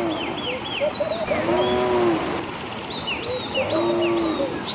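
Three short animal calls, each rising then falling, about two seconds apart, with small birds chirping repeatedly over them.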